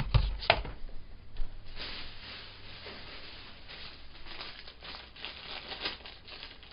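Packaging crinkling and rustling as small model train pieces are handled and sorted, with a few sharp clicks of parts being set down in the first half second.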